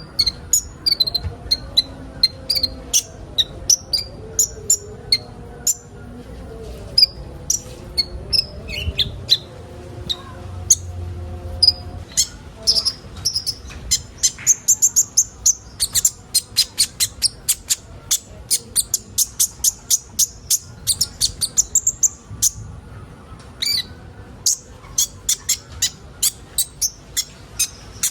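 Several kolibri ninja sunbirds chirping together: sharp, high, quick notes, crowding into a fast, continuous run through the middle.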